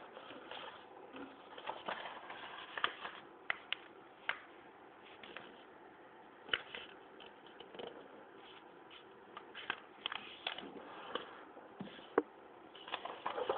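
A sheet of A4 paper rustling and crackling as hands handle, fold and crease it, with scattered sharp clicks.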